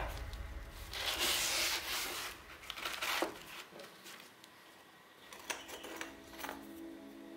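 80-grit sandpaper being torn along a wooden straightedge: one ripping sound starting about a second in and lasting about a second. After it come a few light knocks.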